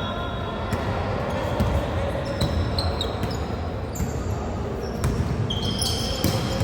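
Basketball game in a gym: the ball bouncing on the hardwood and sneakers squeaking in short, high chirps, with the hall's echo and background rumble.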